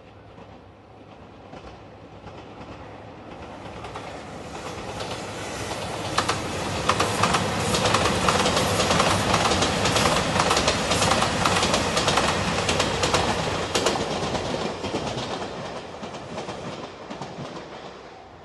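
JR Shikoku limited express train passing close by, its wheels clattering over the rail joints. It grows louder over the first few seconds, is loudest through the middle, and fades away near the end.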